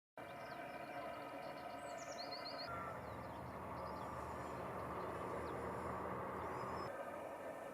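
Small birds chirping and trilling over a steady background hum. From about three seconds in, a low rumble joins them and stops abruptly about seven seconds in.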